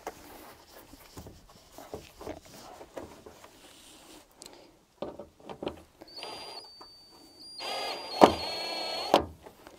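Cordless drill-driver driving a screw into a fibreglass front spoiler: a short whirring run about six seconds in, then a louder, longer run with a sharp click partway through, cutting off abruptly. Before that, quiet handling clicks and rustles.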